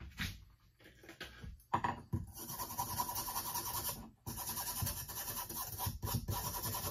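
Quick back-and-forth strokes of an old four-way (four-in-hand) hand rasp scraping wood on an axe handle and wedge. The strokes begin a little under two seconds in and break off briefly about four seconds in. The rasp is worn enough that its user wants a new one.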